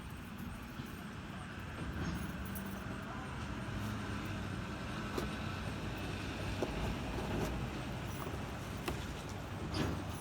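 A motor vehicle's engine running steadily, its low hum growing a little louder about two seconds in, with a few faint clicks over it.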